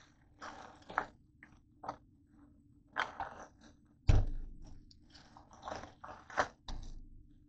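Off-camera kitchen handling: irregular crunching and crackling with sharp clicks, and one heavy thump about four seconds in.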